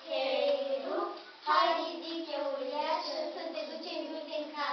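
A single high voice singing a line of a song, with some held notes and one louder entry about one and a half seconds in.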